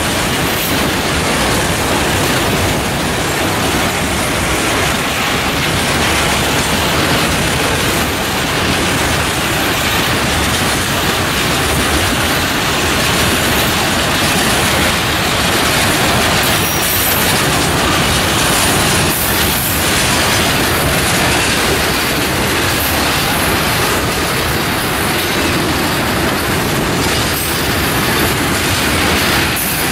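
Freight train of tank wagons rolling past close by: a loud, steady rumble of steel wheels running on the rails.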